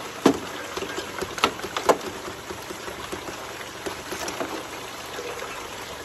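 Water from a sump pump hose rushing and splashing through a Gold Hog Raptor Flare 2.0 aluminium sluice as a bucket of material is poured into its hopper. Several sharp clicks of stones striking the metal come in the first two seconds.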